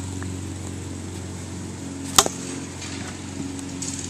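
A plastic wiffle ball bat hitting a wiffle ball: one sharp crack about two seconds in, with a smaller click right after it, over a steady low hum.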